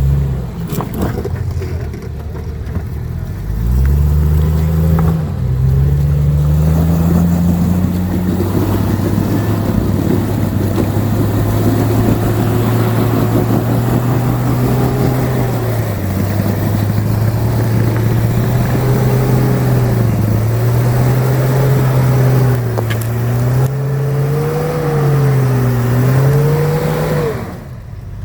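Built off-road crawler's engine revving up about four seconds in and held at high revs under load, its pitch wavering up and down; it drops away abruptly near the end.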